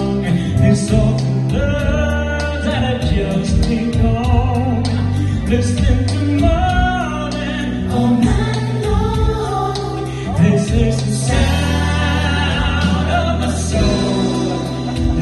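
Male vocal trio singing in close harmony over a recorded backing track with a steady bass line, amplified through a PA.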